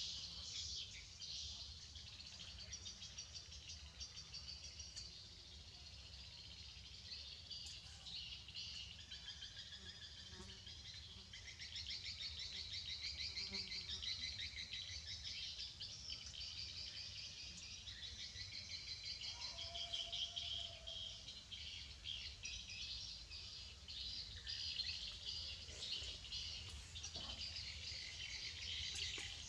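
Insects trilling and birds chirping in a steady rapid chorus, with a short lower whistle about two thirds of the way through.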